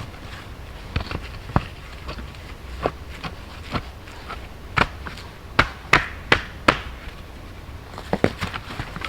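Irregular sharp knocks and clicks, about a dozen, the loudest bunched together in the middle, over a steady low hum.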